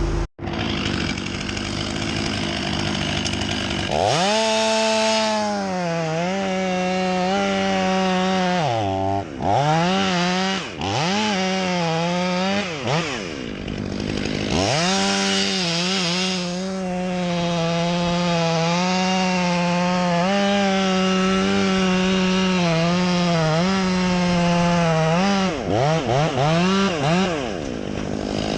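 Chainsaw running, speeding up about four seconds in, its pitch dropping and recovering several times, then holding steady at high revs for about ten seconds before a few more quick dips near the end.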